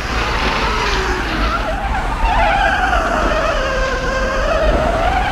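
Vehicle tyres squealing and skidding over a steady engine rumble. A long squeal sags in pitch and rises again in the second half.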